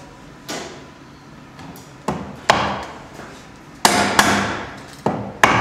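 Wooden mallet striking a chisel, chopping the faceplate recess for a mortice lock into an upright piece of timber: about seven sharp knocks at an uneven pace, the loudest near the middle.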